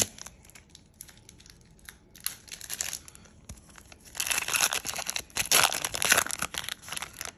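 Foil wrapper of a Pokémon booster pack crinkling and tearing as it is ripped open by hand: scattered crinkles at first, then a dense, louder bout of crinkling from about four seconds in to near the end.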